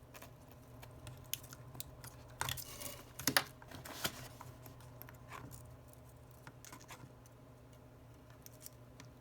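Scattered small clicks and taps of metal tools and parts as a phone's flex cables are pressed onto their board connectors, the loudest cluster about three seconds in, fainter and sparser after five seconds.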